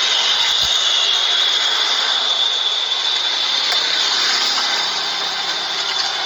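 Steady, high hiss of steam venting from an open radiator filler on a recently run engine.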